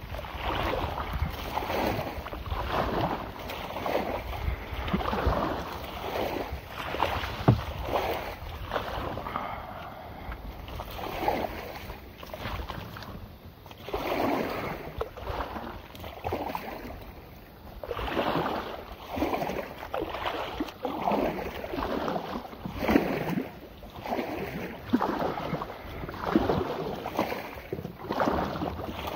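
Kayak hull pushing through dense pickerelweed, the leaves and stems brushing and swishing against it in repeated bursts. There are brief lulls about twelve and seventeen seconds in.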